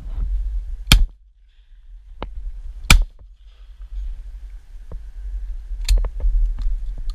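Two shotgun shots from a Browning loaded with GameBore Velocity No. 6 cartridges, about two seconds apart, fired at wood pigeons. A steady low rumble runs underneath, and lighter clicks and knocks follow from about six seconds in.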